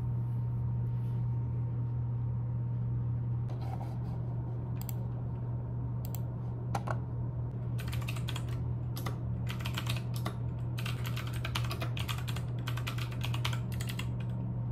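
Typing on a computer keyboard: a few scattered keystrokes at first, then quick runs of key clicks in the second half. A steady low hum lies under it.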